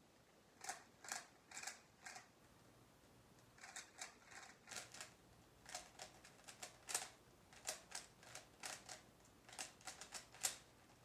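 Rubik's cube being turned fast while the last layer is solved: faint plastic clicks of the layers turning, in quick runs of several turns with short pauses between.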